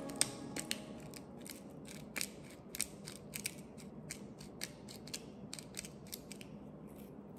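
Pepper mill grinding peppercorns: a run of short, gritty clicks, about three a second, thinning out near the end.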